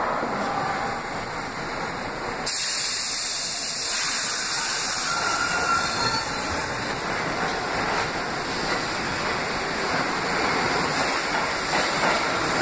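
New York City Subway R62-series train pulling out of an underground station. A hiss of air starts abruptly about two and a half seconds in, then the running and wheel noise of the cars builds with a few clicks as it picks up speed.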